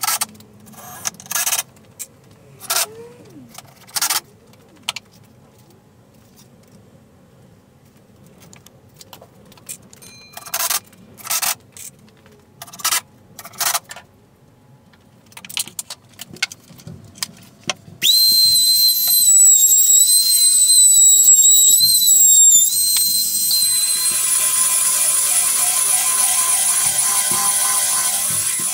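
Cordless drill driving screws into a pine workbench frame in about a dozen short bursts over the first fourteen seconds. About eighteen seconds in, an electric sander starts on the plywood top and runs continuously: a high whine at first, then a rougher, even buzzing.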